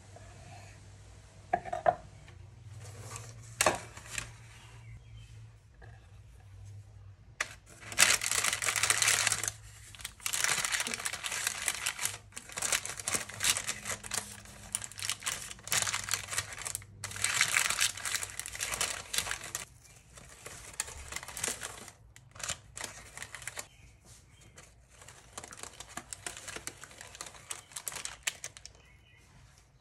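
Crinkling and rustling of a sheet being handled, in bursts a few seconds long, over a low steady hum. Two sharp knocks come in the first few seconds.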